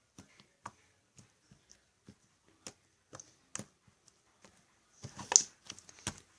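Freshly made glitter-glue and borax slime handled in the hands, giving off scattered small sticky clicks and pops, with a louder cluster of them about five seconds in.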